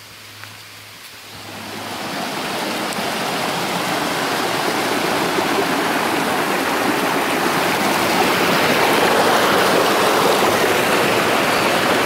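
Rushing water of a shallow stream tumbling over rocks, swelling up about two seconds in and then running steadily.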